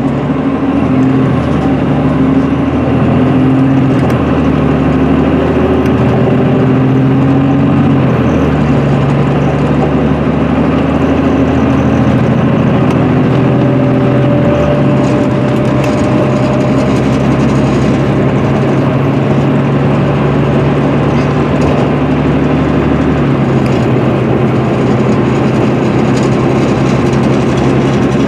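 Cummins ISM diesel engine of an MCI D4500CL coach, heard from inside the cabin as the coach pulls up to freeway speed, over steady road and tyre noise. The engine note changes in steps a few times as the Allison automatic transmission shifts.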